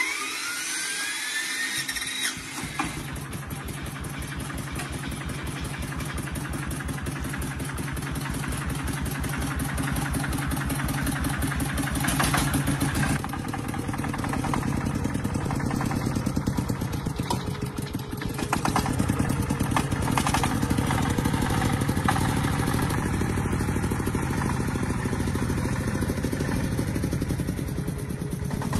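Small Yanmar tractor diesel engine running with a rapid, even chugging, after a rising whine in the first two seconds; the engine note swells and eases a little a few times.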